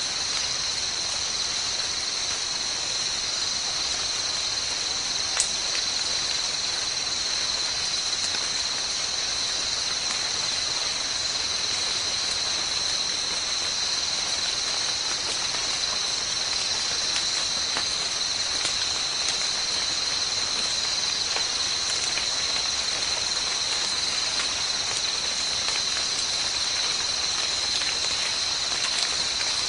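Steady, unbroken high-pitched drone of an insect chorus, with a single sharp click about five seconds in.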